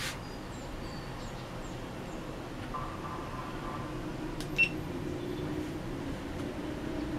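Small camera and phone handled in the hands, with one sharp click about four and a half seconds in, over a steady hum and faint high chirps.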